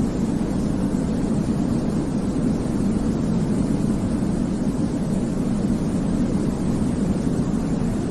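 Baby-sleep white noise: a steady, even rushing hiss weighted toward the low end, so it sounds deep and rumbling rather than bright.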